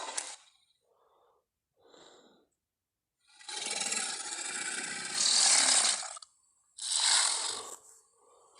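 Carnotaurus sound effects from the animated series Jurassic World Camp Cretaceous: rasping, breathy growls with no clear pitch. A long one of about three seconds starts about three seconds in and swells toward its end, and a shorter one follows about a second later.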